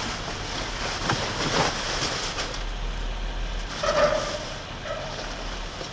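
Plastic sheeting and bubble wrap crinkling and rustling as a man digs through them by hand, with a few sharper scrapes of cardboard and packing paper being shifted, the loudest about four seconds in.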